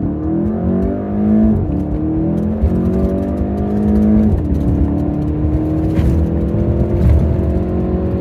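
Car engine accelerating hard through the gears: its pitch climbs, drops at a gear change about a second and a half in and again about four seconds in, then climbs slowly again.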